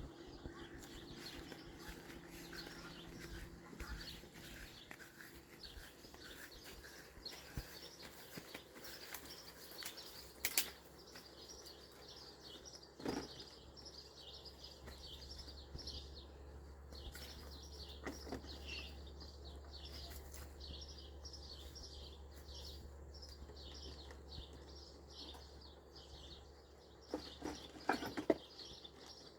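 Rapid high chirping from small animals, several chirps a second, with a few sharp knocks about a third of the way in and again near the end, over a faint low hum.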